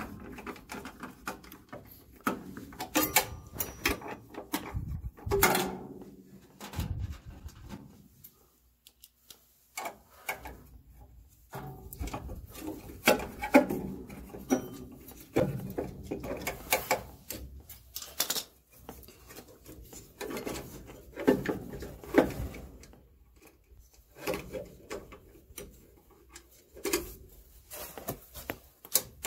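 Screws being driven by hand with a screwdriver while an inducer blower motor is fitted to the furnace's sheet-metal housing: irregular clicks, scrapes and knocks of metal parts being handled, with a quieter spell about a third of the way in.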